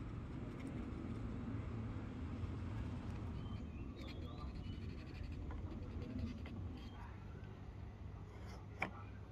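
Quiet outdoor ambience with a steady low hum and a few faint bird chirps. Shortly before the end there is a single sharp click as the steel axe head is pushed onto the top of the rosewood handle.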